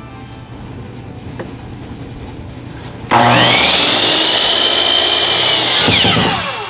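DeWalt compound miter saw starting up about three seconds in, its motor whining up to speed as the blade cuts through a rough-sawn cedar board, then winding down with a falling whine near the end.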